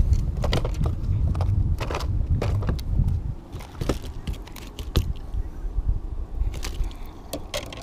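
Irregular knocks, clicks and scuffs on a bass boat's deck over a low rumble, heavier in the first three seconds: an angler moving about and handling a freshly landed bass.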